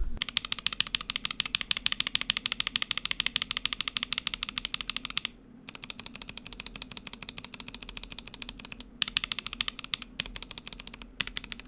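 Rapid keystrokes on a Womier K87 stacked-acrylic mechanical keyboard with Gateron Red switches, being pressed to hear how a freshly fitted Holy Panda X and Akko CS Silver switch sound beside the stock reds. The clatter stops briefly about five seconds in, comes back quieter, and breaks off twice more near the end.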